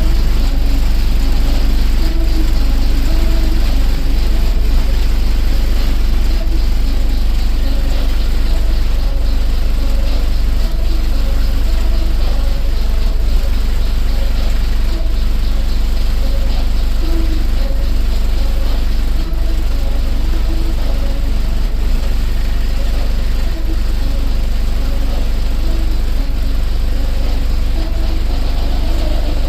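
Competition car-audio subwoofers playing a bass-heavy music run at very high volume: a loud, steady, deep rumble with faint muffled music above it, held without a break throughout.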